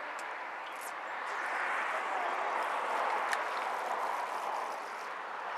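A passing motor vehicle: a rushing noise that swells about a second in, is loudest around three seconds and fades away. There is a faint sharp click near the middle.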